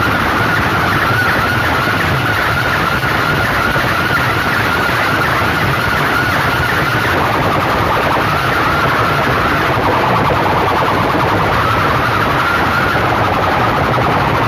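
Wall of aluminium horn loudspeakers playing at full volume, heard as a dense, distorted, unbroken din with a wavering siren-like tone running through it.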